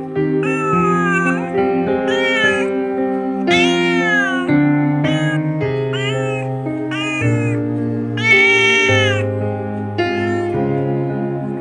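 Slow background music with a cat meowing over it again and again: short rising-and-falling meows about once a second, one longer meow near the end.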